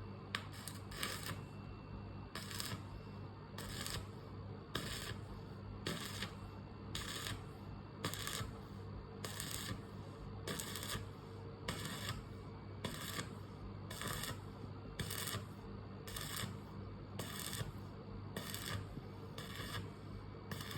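Arc welding done in short repeated strikes, stitch-welding style: a brief crackle about one and a half times a second over a steady electrical hum.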